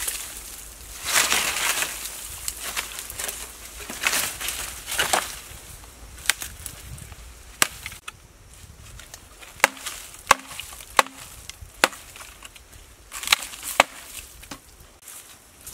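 Dry leaf litter rustling and crunching underfoot, then rotten wood cracking and splintering in a string of sharp separate snaps as a decayed log is broken into.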